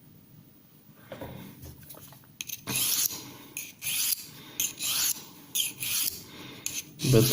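Steel knife edge being drawn along a ceramic sharpening rod, a series of short rasping strokes starting about two and a half seconds in. The strokes are steel being ground off the edge.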